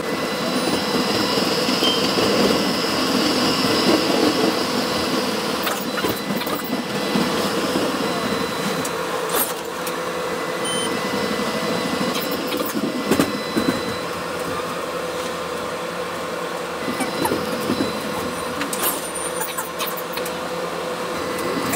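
Ride noise inside a moving Melbourne tram: a steady rumble of wheels on rails with a constant motor hum, and a few sharp clicks and clunks along the way.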